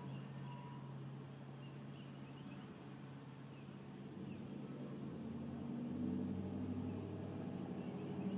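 Car engine idling, a steady low hum heard inside the cabin. About six seconds in, the hum drops in pitch and grows louder.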